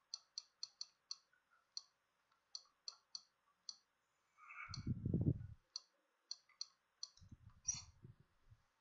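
Sharp clicks of computer input presses, about twenty at an uneven pace, as a menu is stepped through. A louder, low muffled rumble lasts about a second near the middle, and a shorter one comes near the end.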